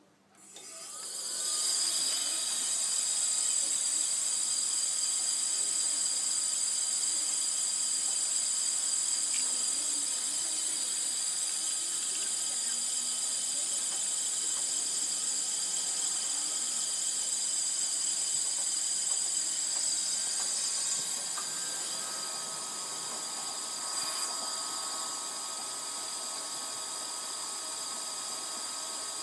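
Combination woodworking machine's inverter-driven three-phase motor spinning up over about two seconds, then running steadily with a high hiss and thin whine. About twenty seconds in it drops a little in level and a lower steady tone comes in.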